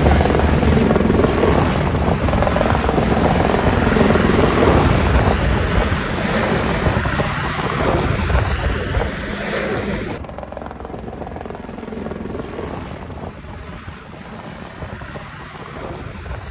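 Helicopter rotor and engine noise, loud and close overhead while it drops water on a woodland fire from a slung bucket. About ten seconds in it cuts abruptly to a quieter, duller, more distant helicopter.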